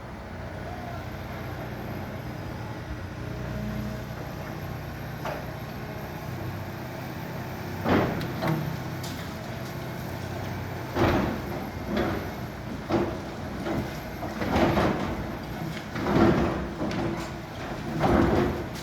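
Excavator engine running steadily while a building is torn down: loud crashes of breaking concrete and falling rubble start about eight seconds in and come every second or two toward the end.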